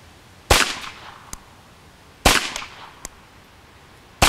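Ruger Charger .22LR semi-automatic pistol firing three single shots, evenly spaced about two seconds apart, each with a short echo. A much fainter sharp click follows the first two shots.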